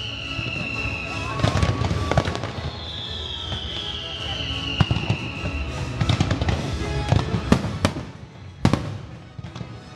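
Aerial fireworks bursting with crackle and sharp bangs over the show's music soundtrack. Two long falling whistles come in the first half, and the loudest bangs come late.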